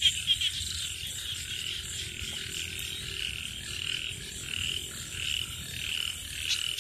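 Night chorus of frogs and insects: a steady high-pitched calling with a regular pulse about twice a second.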